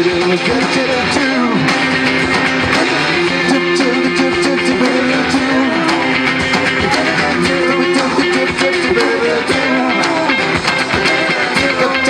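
Live band playing an instrumental passage: a strummed acoustic guitar and an electric guitar over drums.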